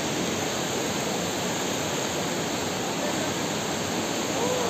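Steady rushing of water from a rocky stream with small rapids, close to a waterfall.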